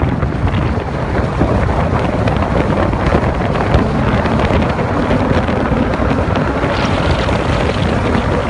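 Lamborghini Gallardo Spyder's V10 engine running while the car drives at a steady pace, mixed with heavy wind noise; a dense steady rush with no distinct revving.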